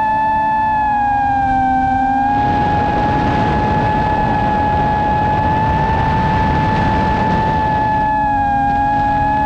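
Motors and propellers of an iFlight Titan XL long-range FPV quadcopter whining at a near-steady pitch in flight. A loud rush of air noise joins them about two seconds in and eases near the end.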